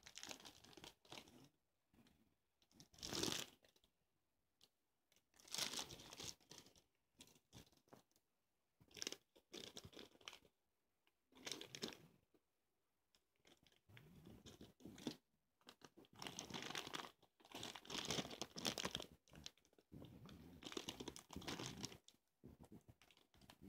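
Clear plastic bags of Lego bricks crinkling and rustling as they are picked up and moved, in irregular bursts with short pauses between them.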